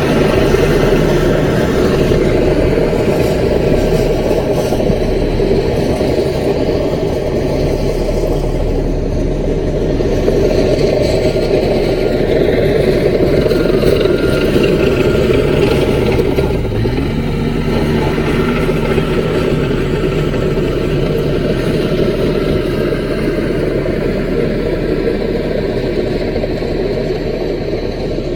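CAT mini bulldozer's diesel engine running steadily.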